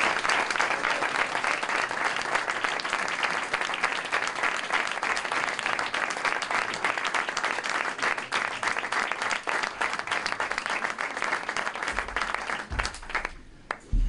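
Audience applauding in a room, a dense even clapping that dies away near the end.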